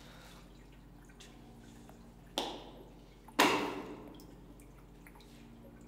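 Two sharp, echoing hits about a second apart, the second louder, over quiet room tone.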